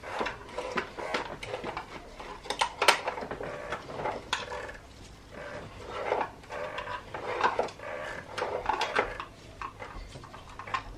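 Irregular clicks, knocks and scraping of a tool working the plastic oil filter housing cap of a BMW N52 engine as the cap is tightened down, with a few sharper knocks near the middle.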